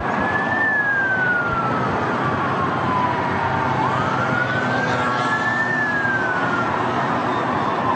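An emergency vehicle siren wailing in slow cycles. A single tone falls gradually, sweeps back up about four seconds in, then falls again, over a steady background of city noise.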